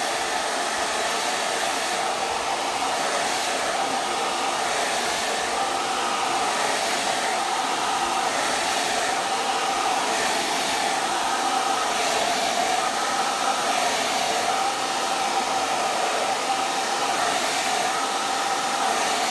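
Handheld hair dryer running steadily on its low (first) speed setting, blowing hot air at the roots. A steady whine sits over the rush of air.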